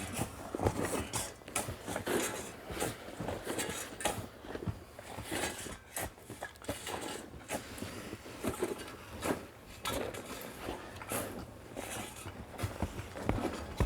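Dirt being scraped and pushed across the slope, a run of irregular gritty scrapes and small crunches with no steady rhythm.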